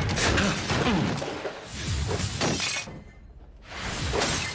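Glass shattering and things breaking and crashing, in three loud waves of about a second each.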